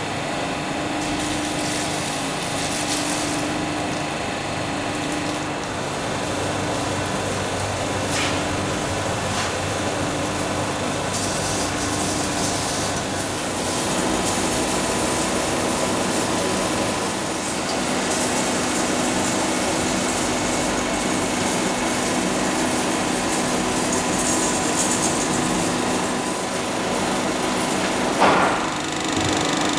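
Ward 10/13 capstan lathe with its 20 hp motor running under power, a steady mechanical drone of motor and headstock gearing. A hum in it pulses every second or two for the first dozen seconds, then holds steady.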